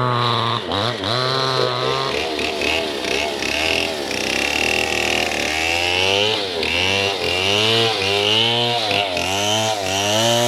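Two-stroke chainsaw ripping lengthwise through a log at full throttle. Its engine note keeps dipping and recovering as the chain bogs in the wood, about twice a second in the second half.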